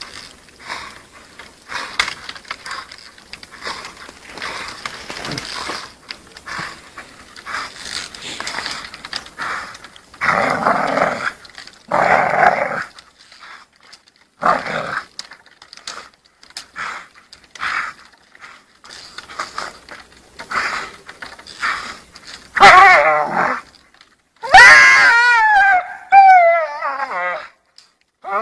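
Dog growling in repeated rough bursts while biting and hanging from a tree branch. About three quarters of the way in come a few loud, high, wavering cries.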